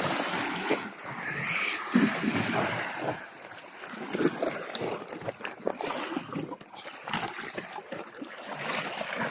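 Water splashing and sloshing in the shallows at the sea's edge, with the irregular wash of surf over rocks. A short high-pitched sound stands out about one and a half seconds in.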